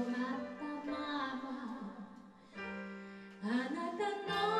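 Live pop-rock band playing a ballad: a woman singing over keyboard, electric bass, drums and electric guitar. The sound drops to a quieter held chord about two seconds in, and the voice comes back with a rising phrase near the end.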